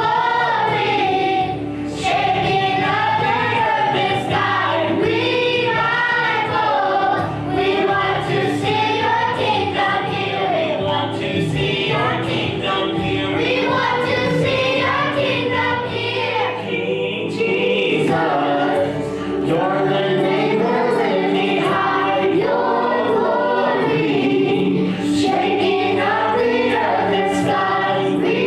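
Choir singing gospel music with instrumental accompaniment.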